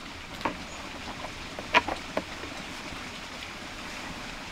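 Hands being washed under a hanging plastic jerrycan tap: a steady trickle of water, with a few light knocks, the sharpest a little under two seconds in.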